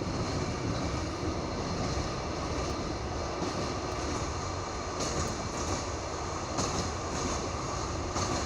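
Passenger train running on jointed rail track laid on wooden sleepers, heard from inside the carriage: a steady rumble of the wheels, with a few sharper knocks from the rail joints in the second half.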